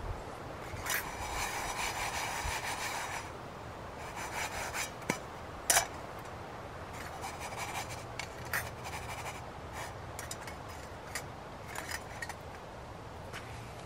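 Utensil scraping against a frying pan for about two seconds near the start, then scattered light clicks and ticks over a faint steady hum.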